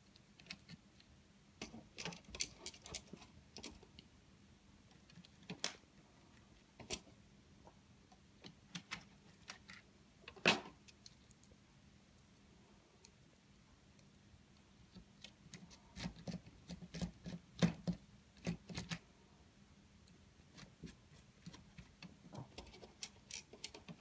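Scattered light clicks and small rattles of a hand screwdriver turning screws into a circuit board in a plastic housing, with handling knocks on the plastic; the clicks bunch together about two-thirds of the way through.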